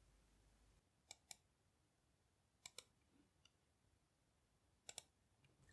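Three faint pairs of computer mouse clicks, each pair a quick double-click, a second or more apart, over near silence.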